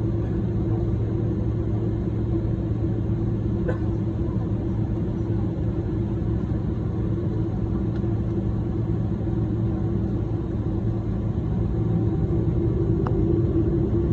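Cabin drone of a Boeing 777-300ER's GE90-115B turbofan engines running steadily at low power while the airliner taxis, heard from a window seat: an even rumble with a steady low hum and a higher hum over it, growing slightly louder near the end.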